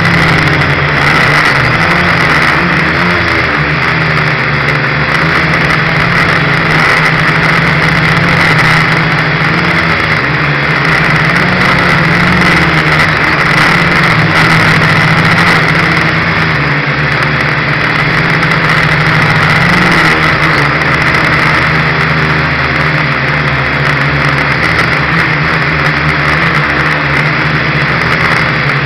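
Dromida Ominus quadcopter's small electric motors and propellers buzzing steadily in flight, heard up close from the craft itself, the pitch wavering slightly as the throttle changes.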